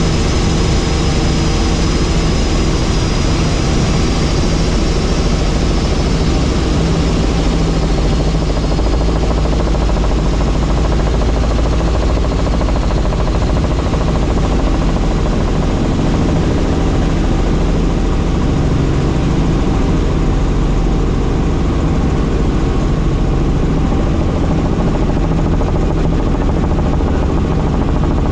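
Helicopter in flight: its engine and rotor make a loud, steady, unchanging noise.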